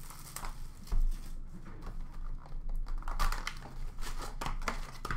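Trading card pack wrappers crinkling and tearing as packs are handled and opened, along with a cardboard box being handled and a thump about a second in.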